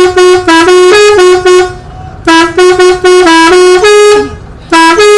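Telolet multi-tone horn played by its push button, sounding quick stepped tunes of hooting notes that jump between a few pitches. The notes come in three bursts with short pauses between: one running on at the start, a full phrase from about two seconds in, and another beginning near the end.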